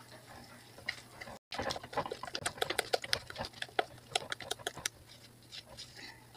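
Thick oatmeal cake batter being stirred by hand in a bowl: quick, irregular clicks and taps of the utensil against the bowl with wet squishing, busiest from about one and a half to five seconds in, after a brief break in the sound.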